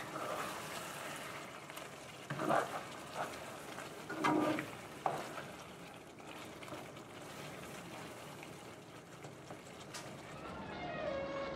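Chicken drumsticks sizzling and simmering in tomato sauce in a stainless steel wok. A spatula scrapes and knocks against the pan a few times between about two and five seconds in.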